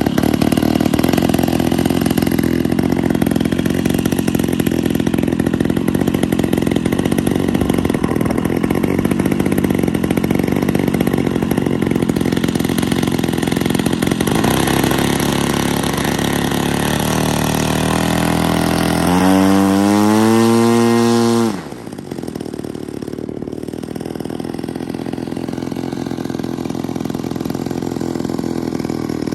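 Single-cylinder two-stroke DLE 55 gas engine of a large RC scale A6M Zero in flight, running steadily. About twenty seconds in it passes close by: it climbs in pitch and grows loudest, then the pitch falls sharply and the sound drops away, building slowly again near the end.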